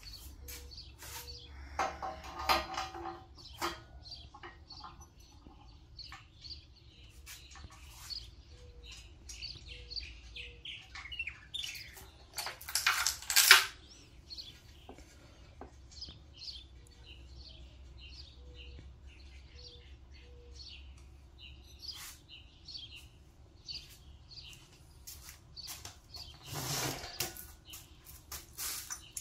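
Scattered clinks and knocks of tools and parts being handled, with small birds chirping in the background over a steady low hum. A louder noise about a second and a half long comes about 13 seconds in and again near the end.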